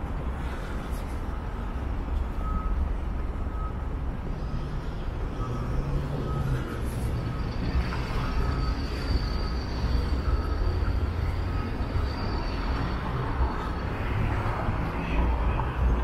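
City street traffic passing, with gusting wind rumbling on the small camera microphone. A faint short beep repeats throughout, and a thin high tone sounds through the middle.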